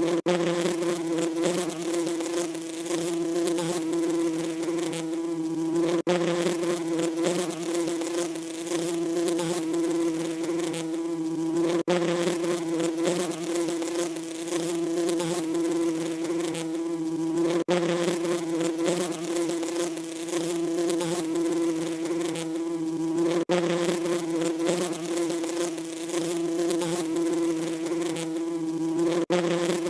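Bees buzzing in a steady, pitched hum. It is a short recording repeated over and over, with a brief break about every six seconds.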